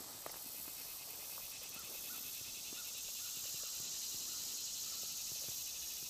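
Faint, steady chorus of insects, a fast pulsing trill with a high hiss behind it, and a few soft clicks.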